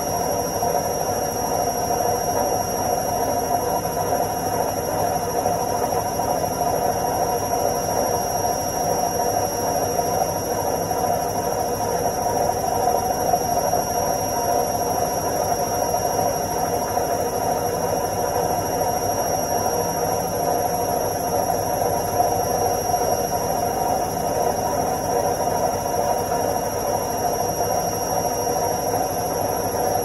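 Front-loading washing machine spinning its drum: a steady whirring rumble with a thin high whine over it.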